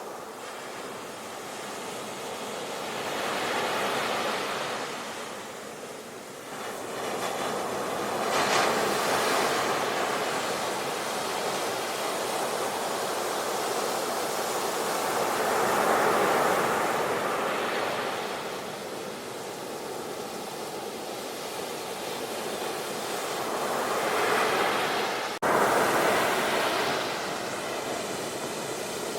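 Sea waves washing onto a shore, swelling and fading every few seconds. Near the end the sound cuts out for an instant and comes back louder.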